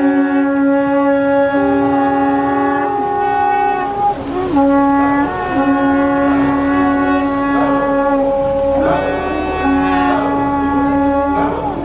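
Long held notes blown on horn-like wind instruments, sounding together at two or three different pitches. Each note is held for a second or more, with short breaks and changes of pitch between them.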